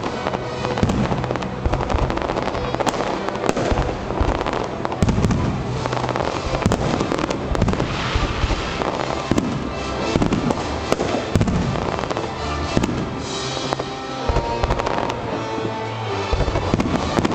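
Fireworks display going off without a break: many shells bursting and crackling in quick succession, with music playing underneath.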